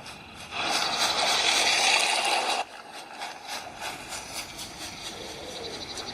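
Rushing noise played through the Samsung Galaxy S9's speakers. It is loud for about two seconds, then drops suddenly to a quieter hiss with a fast fluttering pulse.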